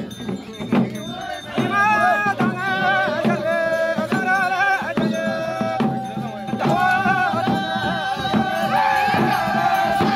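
Folk singing by several voices with wavering, drawn-out notes over steady frame-drum beats, with a light rattling of percussion. The singing starts about a second and a half in, and one voice holds a long note over the second half.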